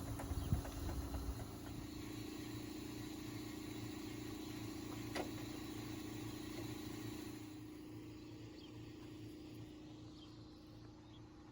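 A steady motor hum with an even low pulsing, growing fainter after about seven seconds.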